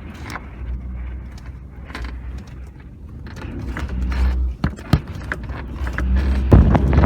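Strong wind gusts buffeting a parked Cessna 206, heard from inside the cabin: a low rumble with scattered sharp knocks as the airframe and wings rock. The wind builds, and a heavy gust hits near the end.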